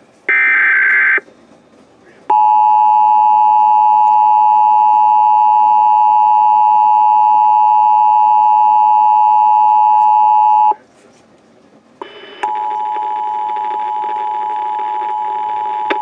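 The last burst of an Emergency Alert System SAME header, a short warbling digital screech, then about a second of quiet, then the EAS two-tone attention signal (853 and 960 Hz sounded together), held steady for about eight seconds and cut off sharply. About twelve seconds in, a quieter steady tone with hiss begins.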